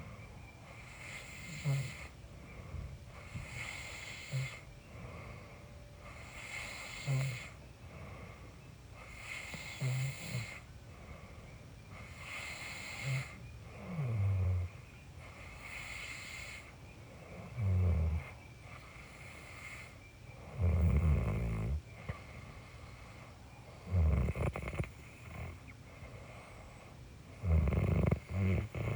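A person snoring in their sleep, with a low rumbling snore every three to four seconds that grows louder and longer in the second half. Forest insects pulse in the background.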